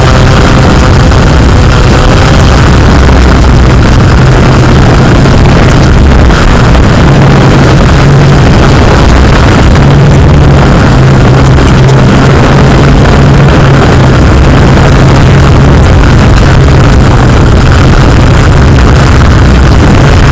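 Yuneec Q500+ quadcopter's electric motors and propellers running in flight: a steady, very loud low hum under a heavy hiss.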